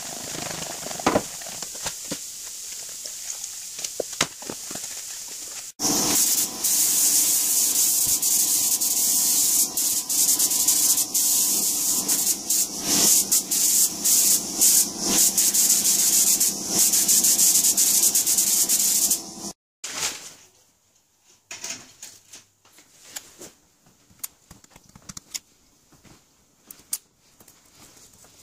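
Air spray gun hissing steadily as it sprays paint, for about fourteen seconds in the middle, then cutting off sharply. Before it come faint knocks and rubbing as plastic measuring cups are handled. After it come quieter crinkling rustles as foil masking is peeled off by hand.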